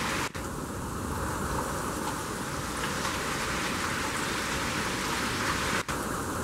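Heavy hurricane rain and wind, a steady rushing noise, cut off very briefly twice, about a third of a second in and near the end.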